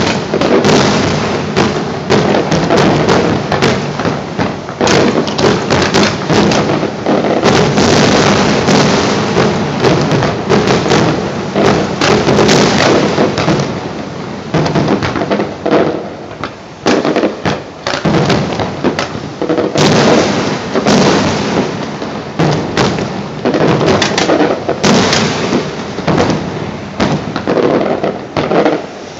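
A rapid, unbroken barrage of gunpowder bangs and crackle from festival fireworks and pyrotechnics fired off boats on the bay, echoing over the water. It thins into more separate bangs near the end.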